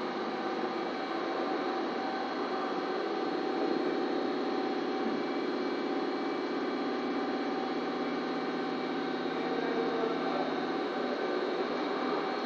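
Steady machine hum with a hiss and several fixed tones, unchanging throughout.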